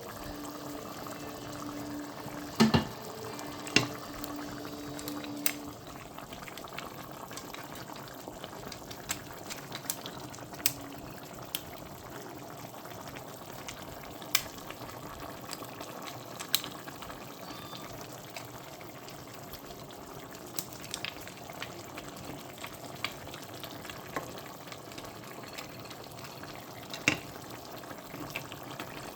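Food cooking in a pot on the stove: a steady bubbling hiss with scattered sharp clicks and knocks. A steady low hum runs under it for the first five seconds or so.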